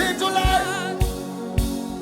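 Gospel worship music: a singer holds a wavering, vibrato note without words over sustained chords, with a low kick drum beating about twice a second.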